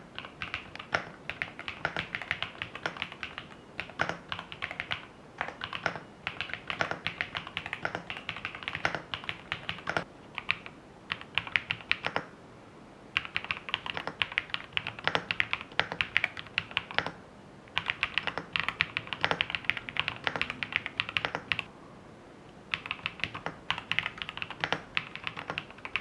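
Typing on a Zouya LMK81 aluminium-case 75% mechanical keyboard with Gateron Modern Grey switches on a polycarbonate plate: fast runs of keystrokes broken by short pauses about 12, 17 and 22 seconds in.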